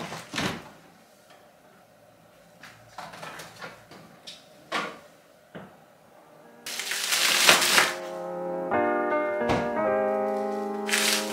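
A few scattered short clicks and knocks, then a loud burst of noise lasting about a second, after which soft background music comes in.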